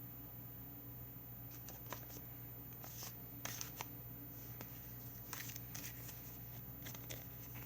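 Faint, scattered clicks and rustles of the Blu-ray packaging and its paper inserts being handled, over a low steady hum.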